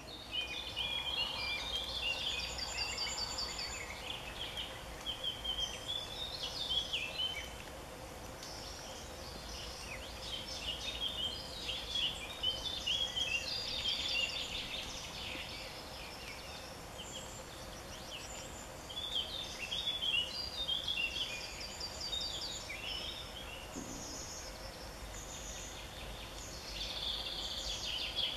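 Songbirds singing, phrase after phrase of quick chirps and trills, over a faint steady hum.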